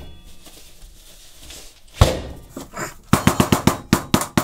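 A tea-towel-wrapped head of cauliflower being banged down on a wooden chopping board to smash it into florets: one hard thump about two seconds in, then a fast run of thuds, about six or seven a second, from about three seconds in.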